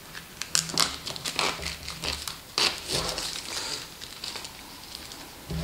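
Thin plastic shrink-wrap film from a phone box crinkling and crackling in irregular bursts as it is handled, with a few sharper clicks as the cardboard box is turned over.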